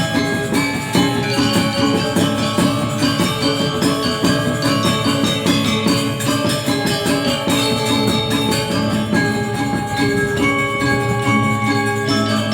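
Balinese gamelan ensemble playing: fast, interlocking strokes on bronze metallophones ringing over a steady beat.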